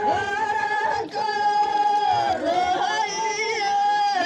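Women singing a rasiya, a Braj folk song, in long held notes, with brief breaks between phrases about a second in and near the end.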